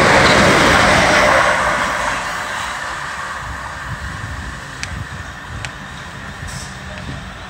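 Southern Class 377 electric multiple unit passing close, its wheel and rail noise loud for the first second and a half and then falling away. After that, quieter steady rumble as another electric train approaches in the distance, with two sharp clicks.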